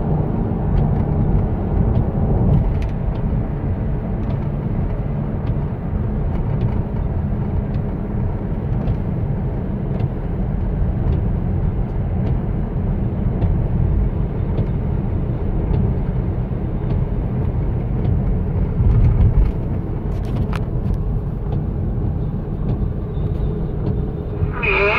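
Steady road and engine rumble inside a car's cabin while driving on wet pavement, with occasional faint ticks.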